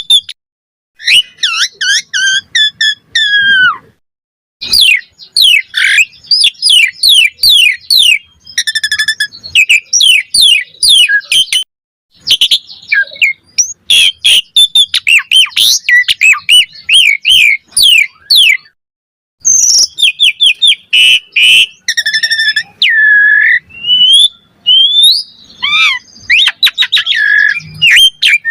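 Asian pied starling (jalak suren) singing in full voice: a fast, varied run of whistles, chattering notes and rising and falling slurs, in long bursts broken by a few short pauses.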